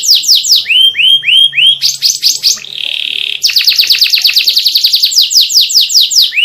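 Domestic canary singing a continuous, varied song of rapid repeated phrases. It opens with fast downward-sweeping notes, then about a second in gives four slower upswept notes. Midway comes a short buzzy trill, followed by a long run of rapid falling notes.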